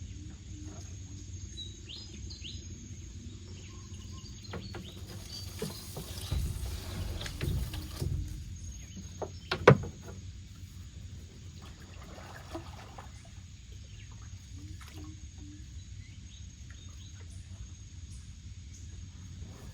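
Quiet outdoor ambience with faint bird chirps and a few light knocks, one sharper click about halfway through.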